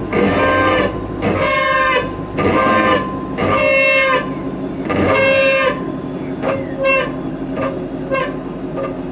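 Brakes of a 6th gen Camaro SS squealing heavily: a string of high-pitched squeals. The first few last most of a second each and come about once a second. After about six seconds they turn into shorter, quicker chirps.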